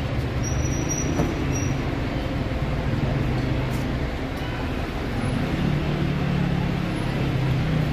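Street traffic noise: a steady rumble of vehicles on the road, with a low engine hum that grows louder in the last couple of seconds.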